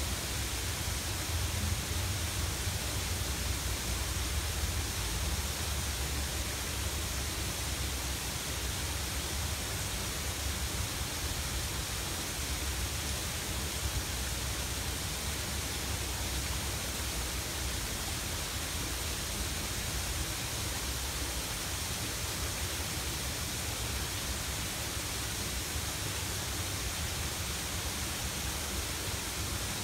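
Waterfall pouring into a pond: a steady, unbroken rush of falling water.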